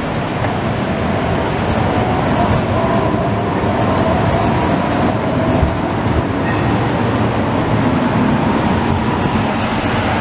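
CAF Urbos tram passing close by on street track: a steady rumble of wheels on rails, with a faint whine through the middle of the pass.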